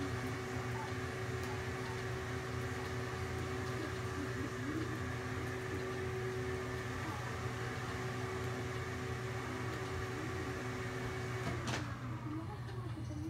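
A steady hum with a held mid-pitched tone over a low drone, cut off abruptly by a click about twelve seconds in.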